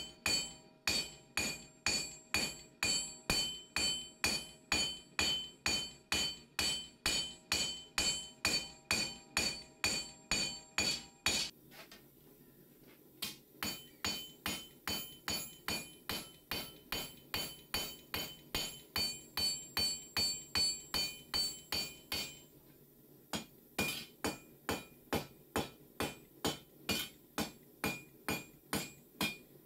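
Hand hammer striking a steel knife blade on a round steel-block anvil while forging it, about two blows a second, each leaving a short metallic ring. The hammering stops briefly twice, about twelve seconds in and again about twenty-three seconds in.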